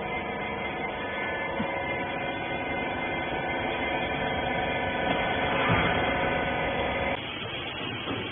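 Hydraulic baler's electric pump motor running with a steady hum, cutting off abruptly about seven seconds in.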